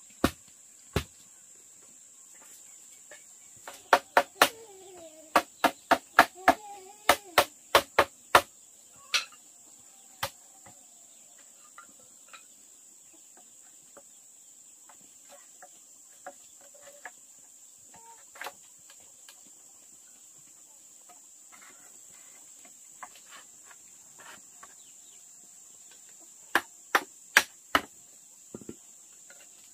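Steady high-pitched insect drone, typical of crickets, with runs of sharp knocks. The first run comes a few seconds in, about two knocks a second for some four seconds; a few more come near the end.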